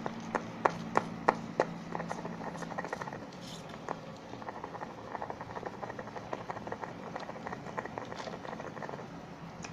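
A spoon stirring soap-and-salt slime in a container, tapping against its sides: sharp taps about three a second for the first two seconds, then a run of softer, quicker clicks.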